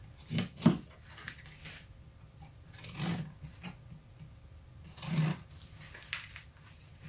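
A small blade slitting and scraping along the edge of a paper mailer envelope. There are several short scraping cuts, the loudest in the first second, with others about three and five seconds in.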